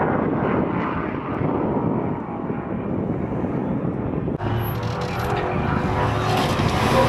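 Jeep engines running at low speed as the vehicles crawl over dirt mounds, a steady drone mixed with outdoor noise. About four seconds in the sound changes abruptly and becomes brighter and closer.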